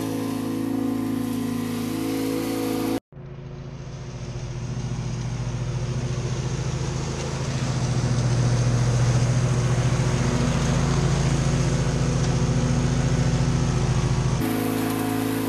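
Husqvarna zero-turn riding mower's engine running under load while it mows through dry leaves. The sound cuts out for an instant about three seconds in, then the engine comes back louder and closer, with a steady throb. Near the end it switches abruptly to a more distant tone.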